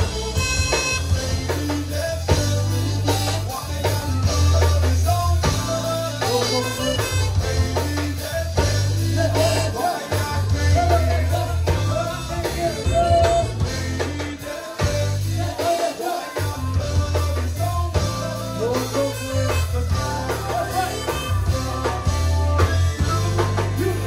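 A zydeco band playing live, with a steady beat and a repeating bass line under melodic lines.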